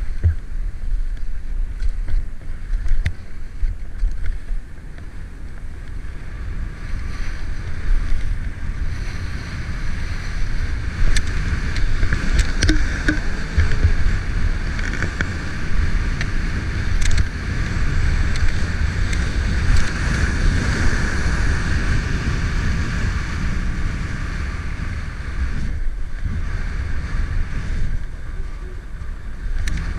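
Skis sliding and scraping over packed, groomed snow at speed, a steady hiss that swells and eases with the turns, under a constant low rumble of wind buffeting the microphone.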